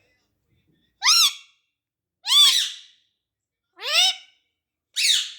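Pet parrot calling: four loud calls, each rising then falling in pitch, spaced about a second apart after a quiet first second.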